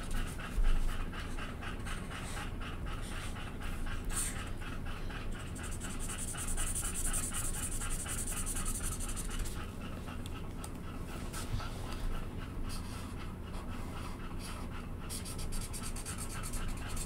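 A dog panting with a fast, steady rhythm. Under it is the faint scratch of a felt-tip marker on paper.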